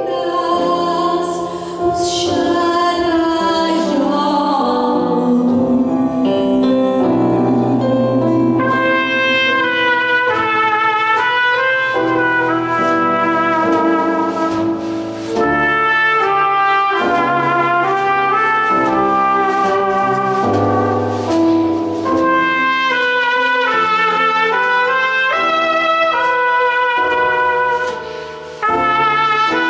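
A small jazz group playing live: a woman's singing ends in the first few seconds, then a trumpet plays a solo melody over piano and drum accompaniment.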